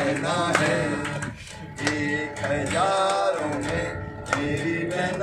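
Singing of a Hindi song with an acoustic guitar played along, the voice holding long notes over the strummed chords.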